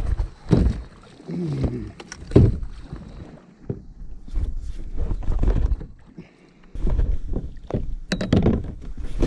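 Irregular splashing and knocks against a kayak hull as a hooked shark thrashes at the side of the boat while it is being handled.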